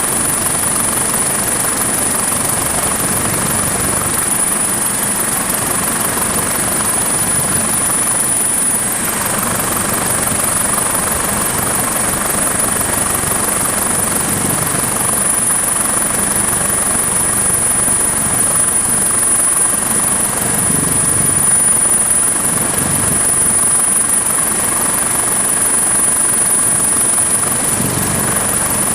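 MH-65 Dolphin helicopter in flight, its rotor and engines running steadily, with a constant high-pitched whine over the dense noise.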